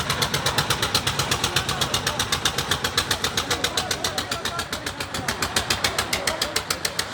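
Concrete mixer machine's engine running steadily with a rapid, even beat.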